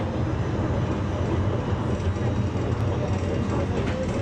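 Tram running along its track, a steady low rumble heard from inside the car.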